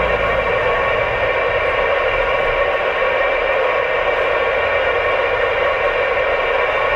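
Steady radio static: an even hiss over a two-way radio channel, loud and unbroken.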